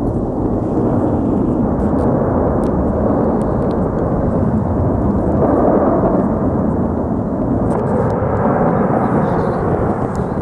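Continuous roar of the Cumbre Vieja volcano's main vent on La Palma during lava fountaining, a steady deep noise that swells slightly about halfway through, with a few faint clicks over it.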